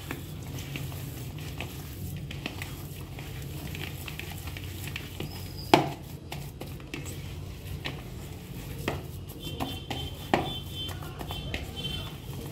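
Hands kneading a minced-chicken kebab mixture in a plastic bowl: soft squelching and patting with scattered knocks against the bowl, the sharpest about six seconds in and again near ten seconds, over a steady low hum.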